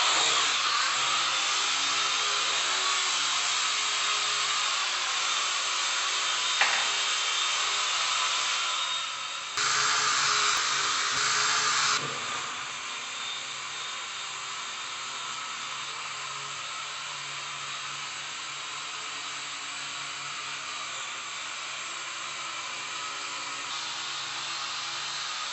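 Small toy drone's electric motors and propellers whirring steadily. About ten seconds in they run louder for a couple of seconds, then settle to a lower, even whir.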